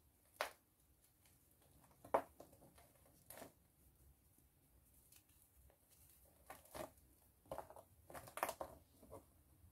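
A pressed baking soda ball being crushed and crumbled between the fingers: short, dry crunches, three spaced out over the first few seconds and a quicker run of them near the end.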